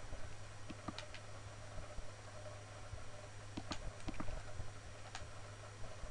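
Computer mouse button clicking, a few clicks about a second in and another handful around four to five seconds in, over a steady low hum.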